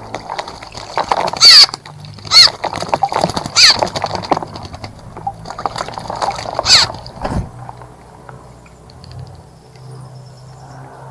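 Loud, harsh cawing calls from a bird, about four of them in the first seven seconds, with fainter chatter between; after that the calls stop and a low steady hum remains.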